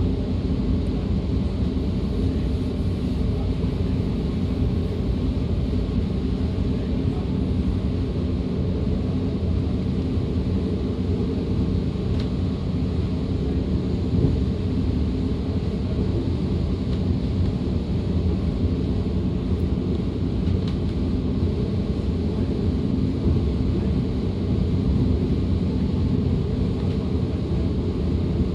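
Running noise inside a DB Class 425 electric multiple unit travelling at steady speed: a constant rumble of the wheels on the rails with a steady hum underneath and the odd faint click.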